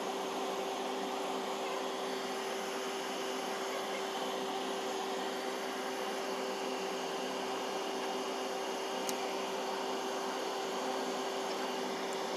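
A machine running steadily: an even hum with one constant mid-pitched tone over a wide whooshing noise.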